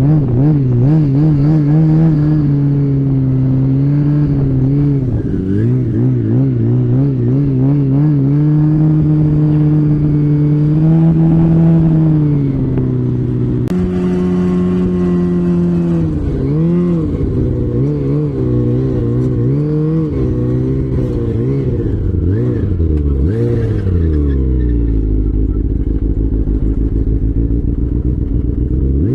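Off-road vehicle engine running under constantly changing throttle, its pitch wavering up and down with an abrupt step about halfway through. Near the end the pitch falls away to a low, steady idle.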